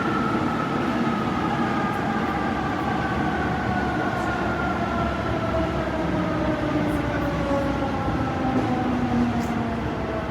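Paris Métro MF 67 train's traction motors whining, several tones sliding slowly down in pitch as the train slows, over steady rolling rumble. The whine is strikingly like that of the RER's MS 61 trains.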